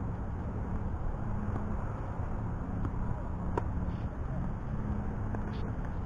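Tennis ball being struck: two sharp knocks about three seconds in, the second louder. Under them runs a steady low outdoor rumble of traffic or wind.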